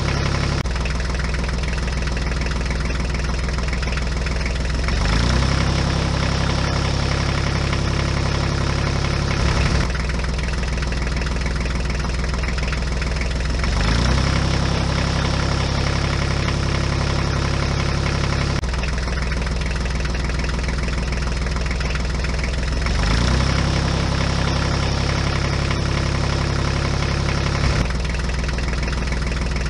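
A tractor engine sound running steadily. Its pitch and loudness shift back and forth about every four to five seconds in a regular repeating pattern.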